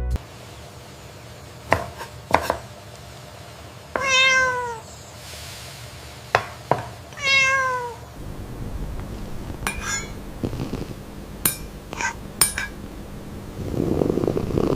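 A domestic cat meowing twice, about four and seven seconds in, each call bending down in pitch at its end, with several sharp clicks or knocks in between.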